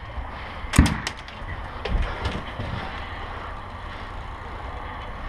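A few sharp knocks: the loudest, with a heavy low thud, about a second in, then weaker ones over a steady low rumble.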